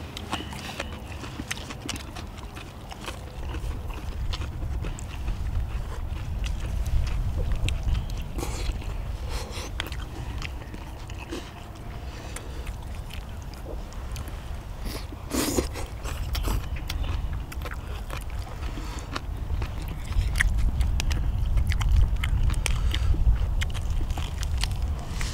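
People eating close to the microphone: chewing and biting mouth sounds with many short sharp clicks, over a steady low rumble that grows louder near the end.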